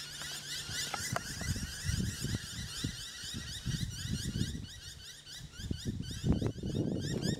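Noisy miners giving their mobbing alarm calls at a perched southern boobook: harsh, rapidly repeated high notes, several a second and unbroken, over a low uneven rumble that grows near the end.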